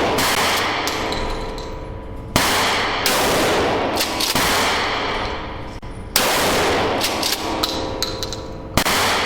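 Gunshots at a shooting range: about six loud single shots spaced one to three seconds apart, each followed by a long echoing decay.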